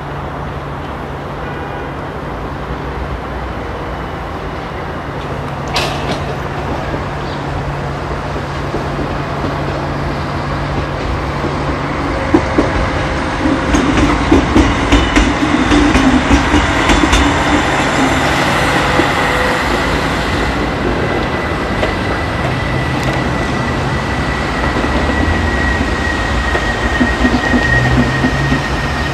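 CC 6500-class electric locomotive CC 6575 running slowly past, a steady low hum and rumble growing louder as it comes near. Midway through there is a run of sharp clicks from its wheels over rail joints and points, and in the second half a thin, steady high tone.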